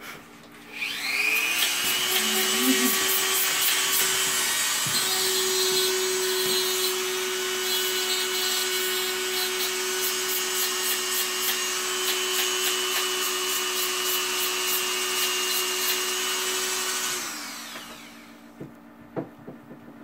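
Small high-speed electric rotary tool spinning up with a rising whine about a second in, running steadily, then winding down near the end.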